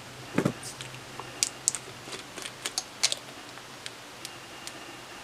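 Small clicks and taps from handling a vape mod's top-fill tank and a glass dropper bottle as the tank's top cap is unscrewed and the bottle is opened, with a dull knock about half a second in. The clicks come in an uneven run and die away after about three and a half seconds.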